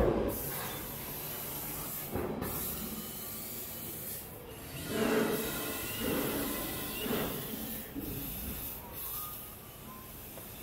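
Stealth SL60M CNC tube laser at work on steel tubing: a steady hiss, with several louder rubbing bursts of about a second each around the middle as the tube is moved.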